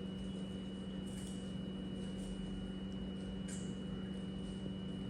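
Steady low electrical hum with a thin high whine above it, and a couple of faint soft handling noises.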